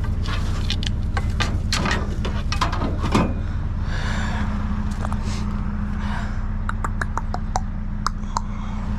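Vehicle running, heard from inside, with a steady low hum and scattered rattles and clicks.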